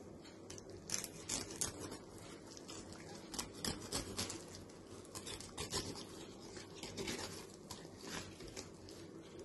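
Knife cutting and scraping through pink salmon flesh and skin on a cutting board: faint, irregular scrapes and clicks, starting about a second in.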